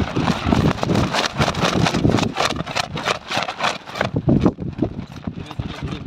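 A thin plastic bag crinkling and rustling as it is handled close by, a dense run of irregular crackles throughout.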